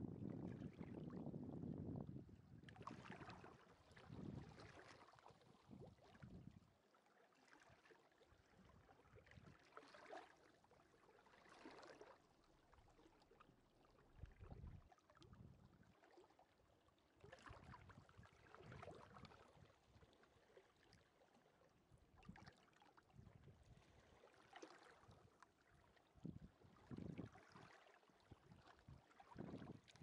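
Faint, gentle sea waves washing onto a beach in soft, irregular washes every couple of seconds. Wind rumbles on the microphone in the first two seconds.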